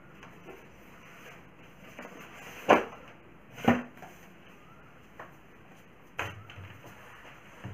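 Two sharp knocks about a second apart, then a lighter tap and another knock as a whiteboard duster is put against the board.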